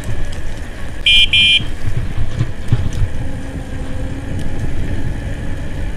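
Wind rushing over the microphone of a bicycle riding fast on an electric bicycle at full throttle. About a second in, a horn gives two short high-pitched beeps.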